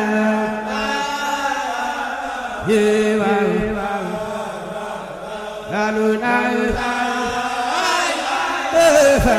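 Background music: chanted singing, a sliding vocal line over a steady held low note.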